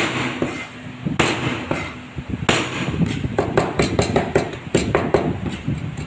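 A cleaver chopping garlic on a wooden chopping board. A few separate heavy knocks come first, then from about three seconds in a quick run of chops, several a second, as the garlic is minced.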